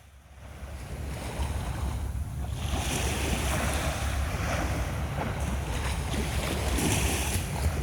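Sea surf breaking and washing up on a beach, swelling louder about three seconds in and again near the end, with a low wind rumble on the microphone throughout. The sound fades in over the first second.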